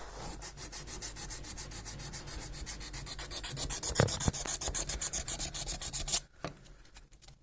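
Sandpaper rubbed quickly back and forth over the copper contact pins of an egg-printing machine's print head, about six strokes a second, scouring them until they shine. A knock comes about four seconds in, and the rubbing stops about six seconds in.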